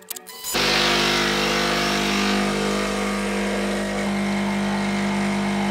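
Home espresso machine's vibratory pump buzzing steadily as it pulls a shot, starting about half a second in after a few light clicks.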